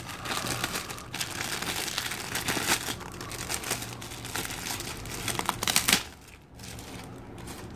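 Thin clear plastic bag crinkling and crackling as it is handled and pulled open, with sharp crackles throughout; it stops about six seconds in.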